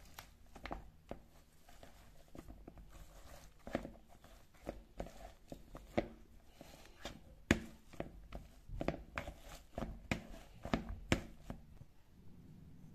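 Metal wire potato masher pressing into soft boiled potatoes in a bowl. It makes irregular soft squishes and knocks, about one a second and sometimes two in quick succession, as it pushes down through the potato against the bowl's bottom.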